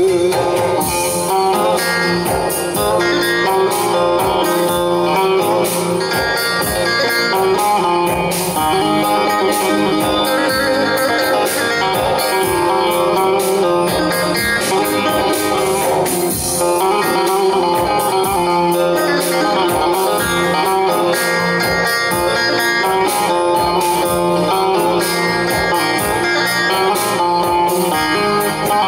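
Turkish Teke-region folk music: a bağlama (long-necked saz) playing a fast plucked instrumental passage over a steady lower accompaniment, with no singing.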